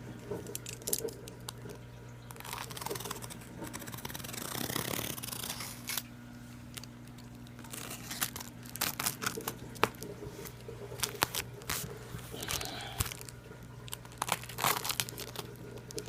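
A shipping package being torn open and handled by hand: tearing and crinkling of packaging, with scattered sharp clicks and taps, over a low steady hum.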